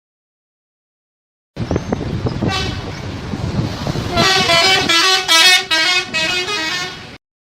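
Indonesian bus telolet horn, a multi-tone musical horn, playing a quick run of changing notes over the bus's engine noise. It starts suddenly about a second and a half in, grows loudest in the second half and cuts off abruptly near the end.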